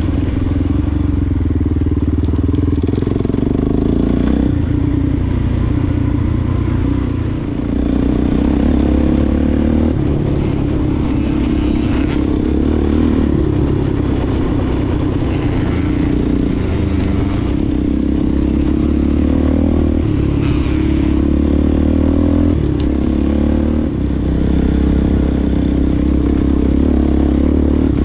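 Single-cylinder off-road engine running while riding over rough ground, its pitch rising and falling with the throttle throughout. The throttle briefly drops off twice, about a third of the way in and again near the end, with light clatter and scraping from the machine over the terrain.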